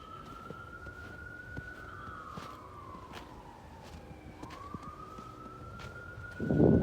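Emergency vehicle siren on a slow wail, rising and falling in pitch about twice, faint and far off. A loud rush of noise cuts in near the end.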